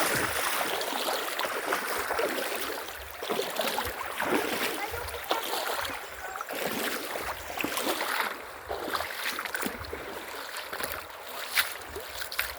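Running water with irregular splashing and knocks.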